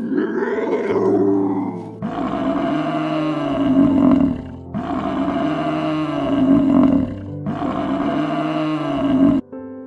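A large animal roaring: three long roars of about two to two and a half seconds each, one after another, over steady background music.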